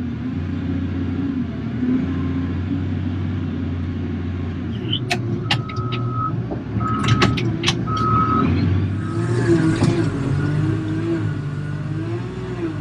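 Cat wheel loader's diesel engine running steadily, heard from inside the cab. About five seconds in, the reverse alarm beeps three times with a few sharp clicks as the loader backs out of the gravel pile. Near the end the engine speeds up, its pitch rising and wavering.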